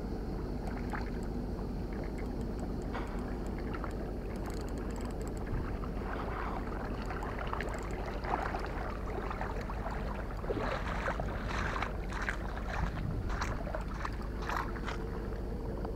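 Steady wind rumble on an action camera's microphone. From about six seconds in, a string of sharp clicks and taps comes through as the angler handles the rod and line while landing a small mullet.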